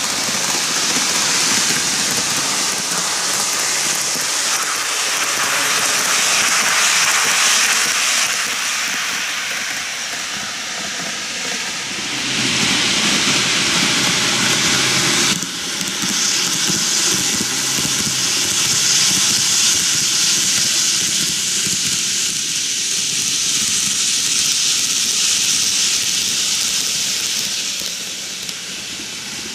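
N-gauge model trains, a Kintetsu 23000-series Ise-Shima Liner and an 80000-series Hinotori, running on the track: a steady high hiss of wheels on rail and motors, changing abruptly about halfway through.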